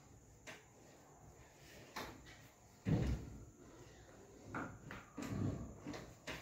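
Handling noise from a chiropractic adjustment on a treatment table: a few light knocks, then a heavier thud about three seconds in and more soft thuds after it.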